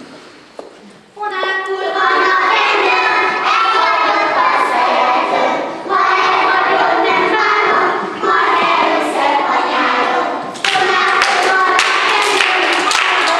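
A group of young children singing a song together, starting about a second in, in several phrases with short breaks between them. Near the end, hand claps join the singing.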